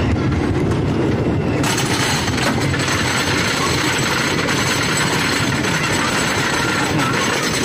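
Wooden roller coaster climbing its lift hill: the lift chain and anti-rollback ratchet clattering rapidly and steadily under the train. The clatter gets sharper about a second and a half in.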